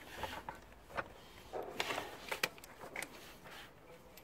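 Scattered light clicks and knocks of parts being handled as an engine cover is fitted back into place, a few sharp taps about one to three seconds in.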